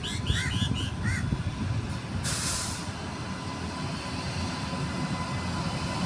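Low rumble of an approaching express train hauled by a WAP-7 electric locomotive, growing as it nears. A bird calls several times in quick succession in the first second, and a brief hiss comes about two seconds in.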